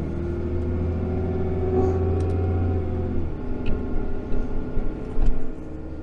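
Pickup truck driving slowly, heard from inside the cab: a steady low engine hum with road noise, the hum falling away about three seconds in.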